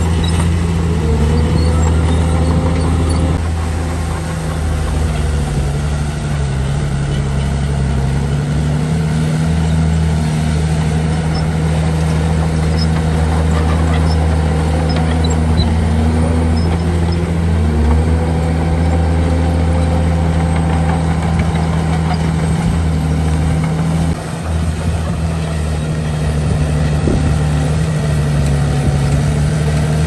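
Heavy diesel engine of earthmoving machinery running hard, its speed dipping and recovering several times as the load changes.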